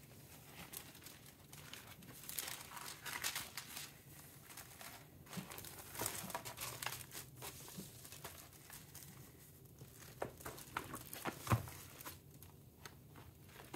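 Faint rustling and crinkling of a printed inner record sleeve as a vinyl LP is slid into it and handled, coming as a string of short, irregular rustles.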